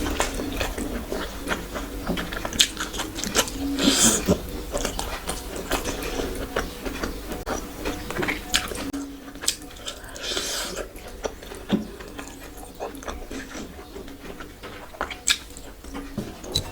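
A person eating close to the microphone: chewing and biting with wet smacking and mouth clicks, and a couple of louder, noisier moments about four and ten seconds in.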